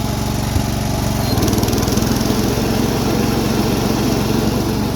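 Riding lawn mower engine running steadily. About a second in, a louder, rougher whirr joins it as the mower deck's blades are engaged.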